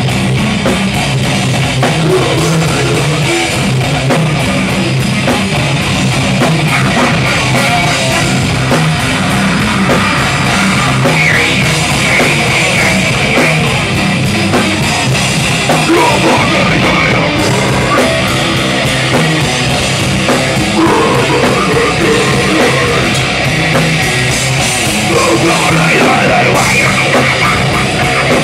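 Heavy metal band playing live at a loud, steady level: distorted electric guitar and drum kit, with harsh vocals shouted into a handheld microphone.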